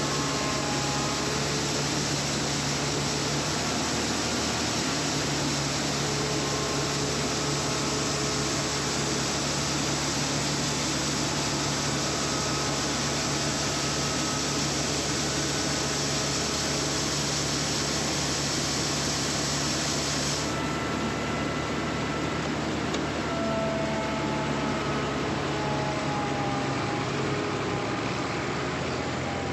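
Steady farm machinery running: a low engine hum under a dense hiss. The highest part of the hiss drops away about two-thirds of the way through.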